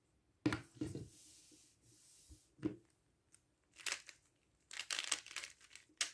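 Plastic 3x3 speedcube being turned by hand: a few separate clacks of its layers snapping round, then a quick run of rapid turns, clattering, in the last couple of seconds.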